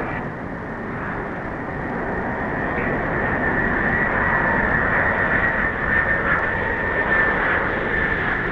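Boeing 747's Pratt & Whitney JT9D turbofan engines running as the jet lands and rolls out: steady jet noise with a high whine, growing louder over the first few seconds.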